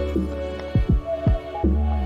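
Music with deep electronic kick drum beats that drop in pitch, over held synth notes.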